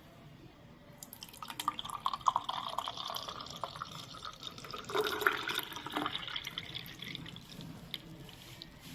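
Lemon-mint juice being poured into a glass, a splashing, trickling pour that starts about a second in and tails off near the end.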